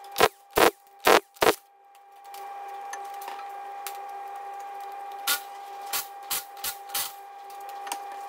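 Cordless impact wrench firing four short bursts in about a second and a half, spinning off the front wheel nuts with a 19 mm socket. Later come a few lighter knocks and clicks.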